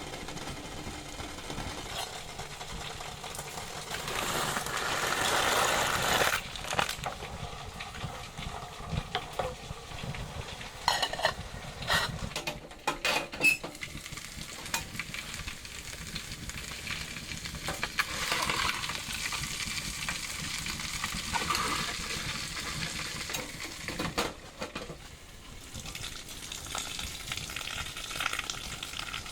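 Food sizzling in a pan while a utensil stirs and scrapes, with scattered clinks of metal on the pan.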